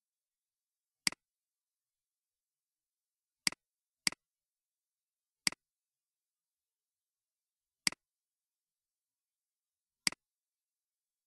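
Computer mouse clicks: six short, sharp clicks, each a quick double snap of button press and release, spaced unevenly, two of them close together about four seconds in.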